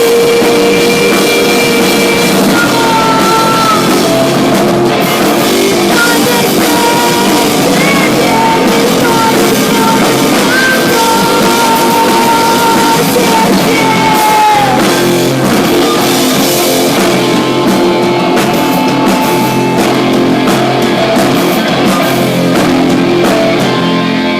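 A rock band playing live, loud and steady, with a singer holding long notes over guitars and drums.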